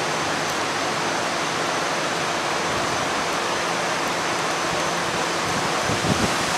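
Floodwater of an overflowing creek rushing and churning in standing waves, a steady, even rushing noise. A brief low thump near the end.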